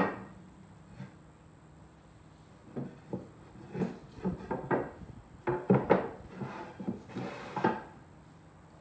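Walnut boards being handled on a plywood tabletop: wooden knocks as they are turned over and set down on edge, with sliding rubs between. A sharp knock at the start and another about a second in, then a quick run of knocks and scrapes over the second half.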